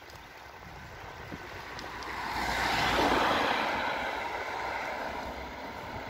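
A car passing close by on the street: the hiss of its tyres and engine swells to its loudest about three seconds in, then fades away with a slight drop in pitch.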